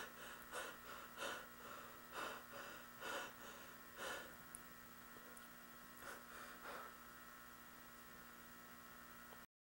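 A man crying quietly in short, uneven sobbing breaths and sniffles that thin out after about seven seconds, over a steady electrical hum. The sound cuts off just before the end.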